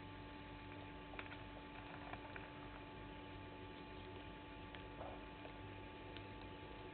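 Faint steady electrical hum, with a few scattered faint clicks.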